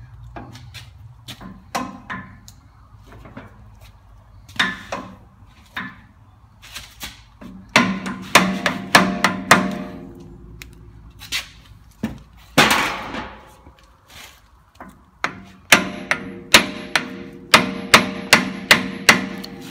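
Hammer striking the steel studs of a Land Cruiser swivel hub, the nuts left on, to knock the split cones loose. The metal rings on each blow: a few lighter knocks, then two runs of sharp strikes at about three a second, the first around halfway through and the longer one near the end.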